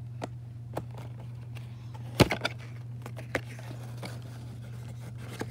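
Cardboard box being handled and its end flap prised open: scattered light clicks and taps, with one sharper snap about two seconds in, over a steady low hum.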